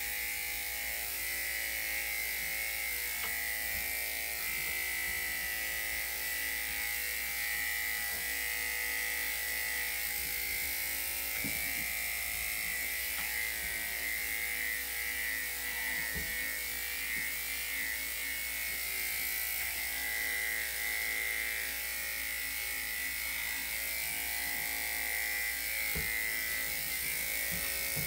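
Electric dog grooming clippers running steadily: a continuous buzz with a high whine.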